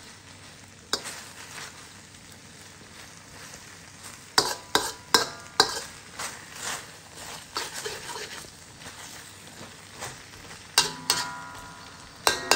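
Beef stir-frying in a metal wok: a steady sizzle under sharp scrapes and clanks of a metal spatula against the pan, with a quick run of strikes around the middle.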